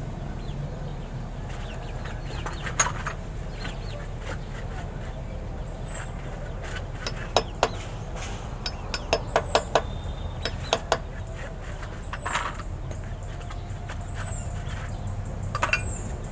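Metal clinks and taps at the front wheel hub of a Bajaj RE as the bearing spacer and washer are fitted, several in quick succession a little past the middle. A small bird gives a short, high, falling chirp about five times.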